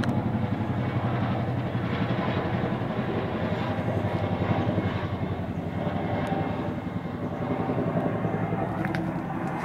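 Boeing CH-47 Chinook tandem-rotor helicopter flying overhead: a steady, rapid, low beat of rotor blades.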